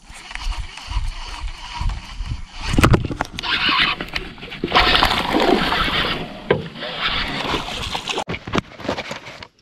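Water splashing and sloshing in several bursts, with a few knocks.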